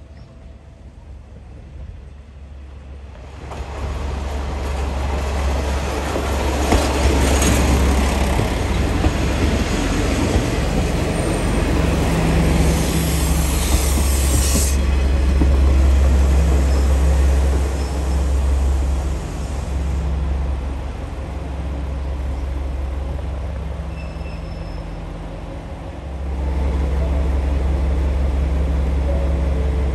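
Two-car diesel railcar train arriving. It comes in about three seconds in with a low engine rumble, and high wheel squeal is loudest in the middle. The squeal eases off, and the engine swells again near the end.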